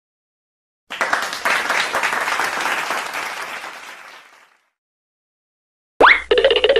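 Applause sound effect: a burst of clapping that starts about a second in and fades away over the next three seconds or so. After a silent gap, a pitched sound starts near the end with a quick upward swoop and then holds a steady note.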